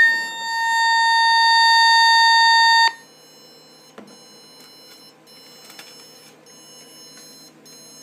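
Loudspeaker driven by a home-built intruder alarm panel's tone generator, sounding a steady single-pitched tone that cuts off suddenly about three seconds in. The tone stops when it should keep going after the system is set, a fault the builder puts down to the unfinished programming.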